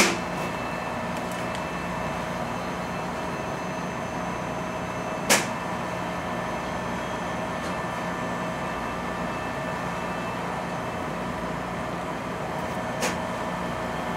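A steady electrical hum holding several fixed tones, with three short sharp clicks: the loudest at the very start, one about five seconds in, and a fainter one near the end.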